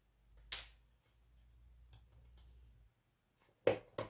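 Sharp clicks and knocks of a screwdriver and a TV power supply board being handled against the set's metal chassis: one click about half a second in, a faint low rumble, then two louder knocks near the end.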